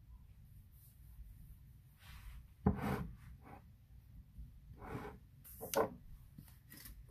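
Handling noise: a few short rubbing scrapes as the bowl of seasoned chicken pieces is handled on the counter, the loudest just under three seconds in and two more close together near the end.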